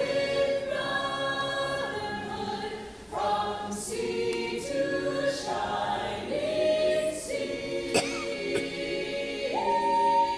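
A mixed a cappella vocal ensemble of men and women singing in close harmony, holding long chords that shift every second or so, with a short pause between phrases about three seconds in.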